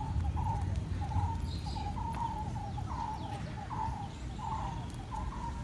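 A bird calling outdoors, a short chirp-like note repeated about every half second to second at a steady pitch, over a low steady rumble of outdoor background noise.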